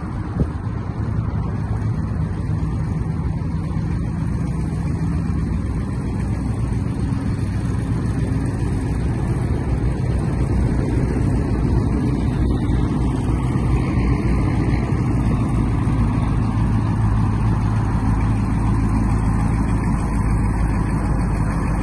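1971 Mercury Cougar's V8 engine running as the car drives slowly, growing gradually louder as it comes closer.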